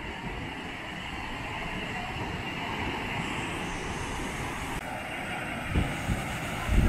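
Steady rushing noise with low thumps of wind buffeting the microphone near the end.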